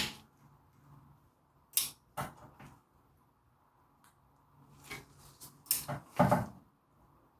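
Hand tools clicking and clunking against the drive shaft flange bolts. About half a dozen separate short knocks, a couple close together about two seconds in and the loudest pair near six seconds.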